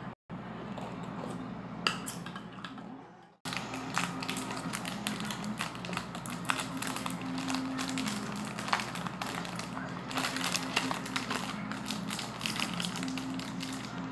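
A metal spoon clinks against a ceramic coffee mug, then a plastic cracker wrapper is handled and opened, a dense run of small crinkling clicks and crackles.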